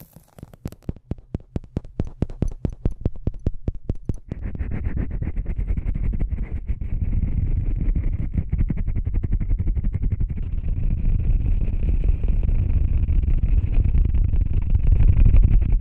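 Close-miked ASMR trigger sounds: a rapid run of sharp taps, about ten a second, for roughly the first four seconds, then a dense, continuous scratching noise that carries on to the end.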